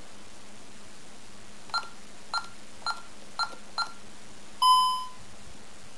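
Burglar alarm system keypad beeping: five short beeps about half a second apart, then one longer, lower beep that fades out.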